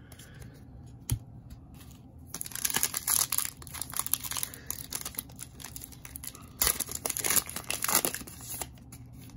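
Trading-card pack wrapper being torn open and crinkled by hand, in two stretches of crackling: one about two seconds in, and another around seven seconds.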